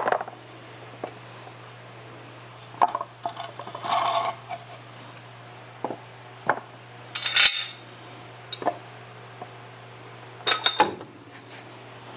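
Scattered metallic clinks and clanks, with a few knocks, as jacks, wood blocks and tools are handled while setting up a car on supports, over a steady low hum.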